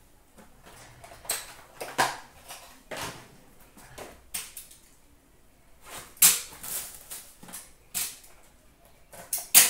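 Hockey card packs and wrappers being handled and opened: a string of short rustles and crinkles, the sharpest about six seconds in and just before the end.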